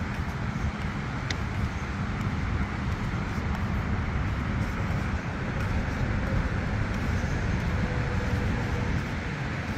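Ford police SUV running as it drives slowly through the parking lot: a steady low engine and road rumble.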